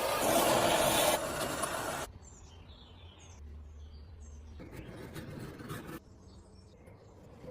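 A loud, steady spray hiss that cuts off suddenly about two seconds in, followed by faint bird chirps.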